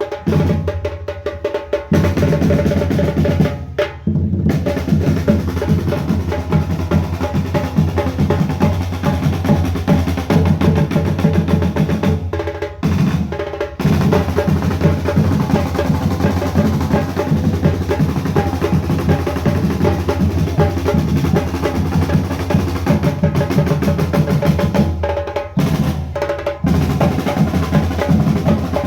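Parade band's drum section playing a fast cadence on snare and bass drums, with drum rolls and a few brief breaks.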